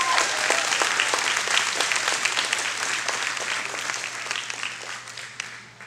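Audience applauding, fading away toward the end.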